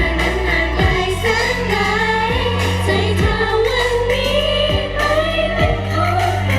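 Thai pop song: a sung melody over a steady bass line and a regular kick drum.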